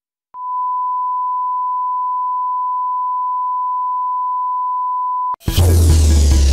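Steady, unbroken test tone of the kind that goes with television colour bars. It sounds for about five seconds and then stops sharply. Loud music with a heavy bass drum comes straight in near the end.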